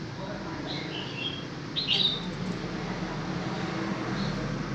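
A bird chirping: a few short, high chirps, the loudest cluster about two seconds in, over a steady low hum.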